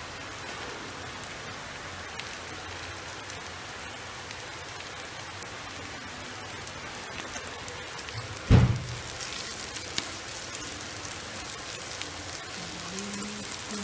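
Onions and curry leaves sizzling as they sauté in oil in a pan: a steady crackling hiss with small pops. A single loud knock about eight and a half seconds in.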